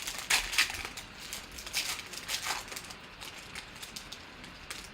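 Several short swishes of glossy trading cards sliding against one another as they are flipped through by hand, most of them in the first three seconds.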